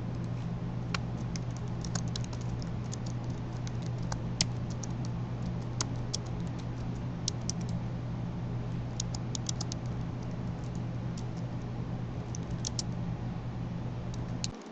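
Typing on a computer keyboard: runs of short, irregular key clicks with brief pauses between them, over a steady low hum.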